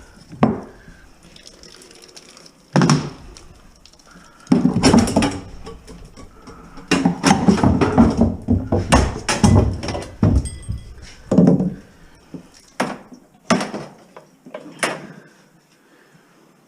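Irregular knocks, clunks and scraping of scrap metal being handled while copper pipe and wire are pulled and cut out of a stripped house, with a longer stretch of clatter in the middle.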